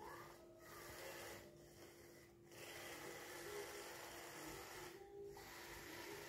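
Faint whirring of a small battery-powered robot's DC gear motors as it drives across a hard floor, heard as a soft hiss with a steady low hum.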